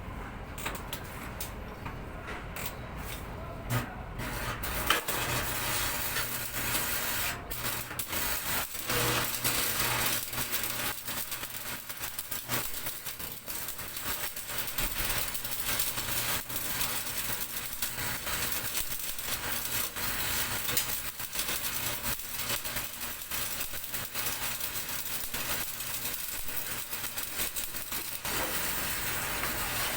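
Electric arc welding: a dense, steady crackle of the arc that starts about five seconds in and runs on, over a low hum.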